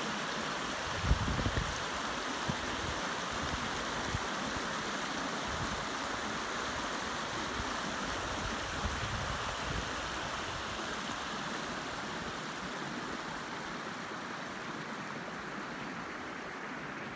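Shallow mountain creek rushing over rocks: a steady hiss of running water that eases slightly near the end. A few low bumps on the microphone about a second in.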